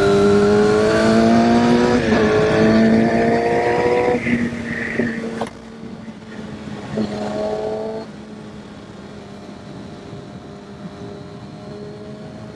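Kawasaki Ninja ZX-6R inline-four engine accelerating hard, its pitch climbing through one gear, shifting up about two seconds in and climbing again. About five and a half seconds in it falls away suddenly to a quieter, steady running note, with wind noise underneath.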